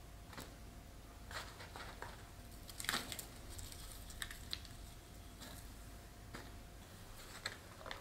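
Hands working potting soil and fern fronds in a ceramic pot: scattered soft rustles and light clicks, the loudest about three seconds in.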